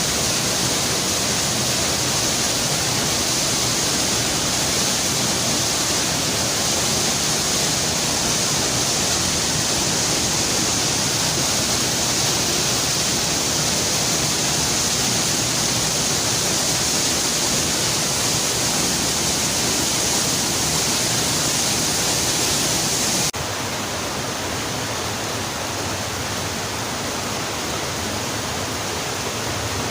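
Waterfall pouring into a wide plunge pool: a steady rush of water that drops a little in level and loses some of its hiss abruptly about three quarters of the way through.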